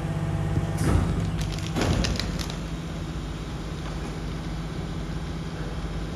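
Rear-loader garbage truck's engine running steadily at standstill with a constant low hum. About one and two seconds in there are two knocks and some clattering as the full wheeled bin is pushed against the rear bin lifter.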